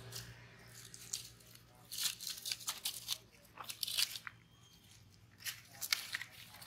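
Irregular crunching and crackling in several short spurts of quick clicks.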